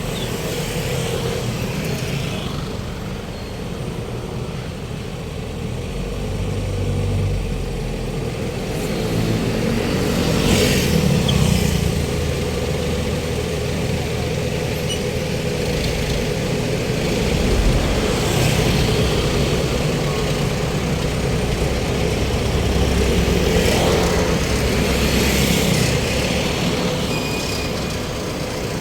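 Road traffic: a steady rumble of cars and trucks, with several louder vehicles passing close by.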